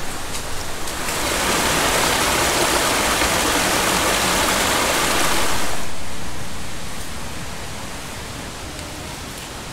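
Creek water rushing over a small cascade, a steady hiss that grows louder about a second in and fades after about six seconds.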